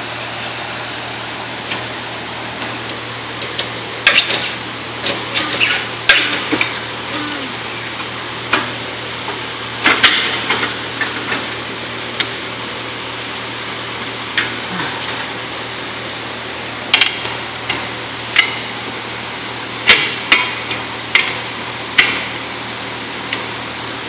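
Irregular metal clanks and sharp knocks from tools against a spoked motorcycle wheel rim while a tire bead is worked on a tire-changing machine, over a steady low hum. The knocks bunch together about four seconds in, around ten seconds in, and again near the end.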